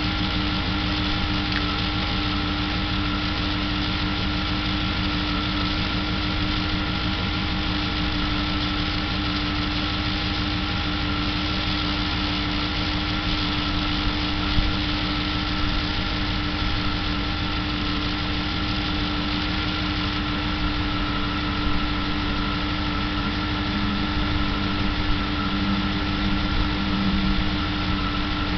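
1998 Dodge Durango's 5.2-litre V8 idling steadily, with a few light clicks around the middle; the owner is hunting a strange knock in this engine.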